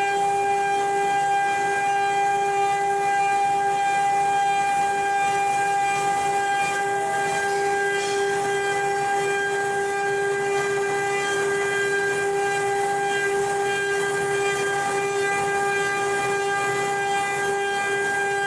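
CNC wood-carving router's spindle running at speed with a steady high whine that holds one pitch throughout.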